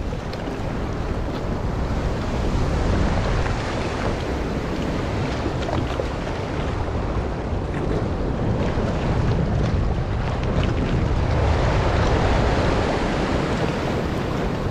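Wind buffeting the microphone over rough, choppy sea, with the wash of waves and surf.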